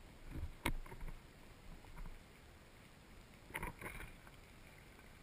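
Underwater knocks and clicks from handling the speargun-mounted camera. A muffled low rumble leads into a sharp click less than a second in, and a cluster of knocks comes a little past halfway, over a faint hiss.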